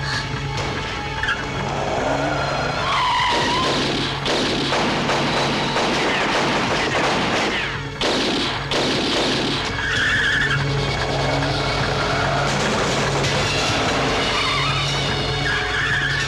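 Film action soundtrack: car tyres squealing over a running engine, with the musical score underneath.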